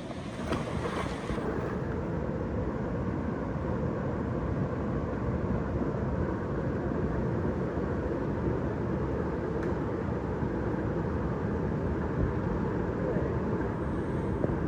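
Steady rush of fast-flowing river water over rocks.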